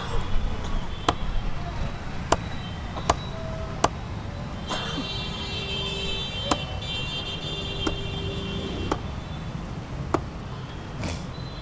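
A cleaver chopping neem chew-stick twigs on a wooden stump: sharp, irregular chops, several in the first four seconds, then sparser, over steady street traffic. A horn-like tone sounds in the traffic from about five to seven seconds in.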